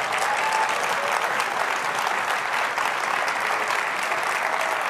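Large conference audience applauding steadily: a dense patter of many hands clapping.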